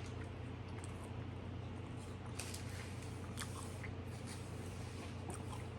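Faint wet chewing and small crackly mouth clicks of someone eating a spicy snack wrap (flour tortilla with chicken, cheese and sauce), over a steady low hum.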